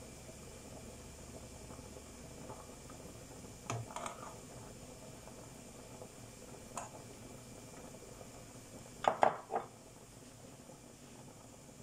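A metal spoon clinking and knocking against a stainless steel soup pot while skimming foam off simmering lentil soup: a few separate clicks, then a louder cluster of knocks about nine seconds in.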